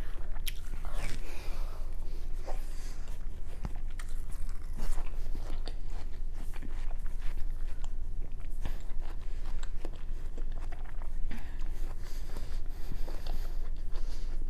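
Close-miked biting and chewing of juicy watermelon flesh, wet crunching with many small clicks and smacks, over a steady low hum.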